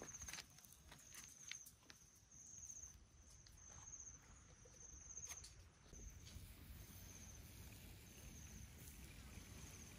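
Near silence: faint outdoor ambience, with a thin high chirp repeating a little more than once a second and a few light clicks in the first couple of seconds.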